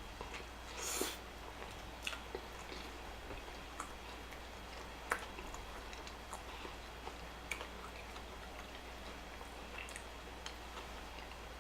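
Close-miked chewing of fast food, with scattered wet mouth clicks and a short crackle about a second in.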